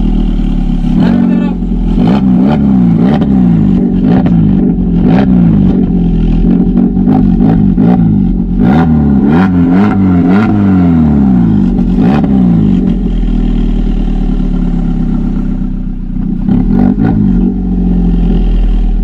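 Ignis petrol engine being revved again and again, heard at the tailpipe and the new electronic exhaust cutout valve, each rev rising and falling in pitch. It settles to a steadier idle for a few seconds near the end before more revs, with a few sharp cracks in between.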